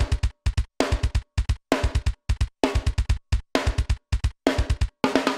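Metal drum recording playing back through a hard noise gate keyed by MIDI trigger notes: rapid double-bass-drum hits in tight clusters with snare, each burst chopped off abruptly, leaving dead-silent gaps between clusters.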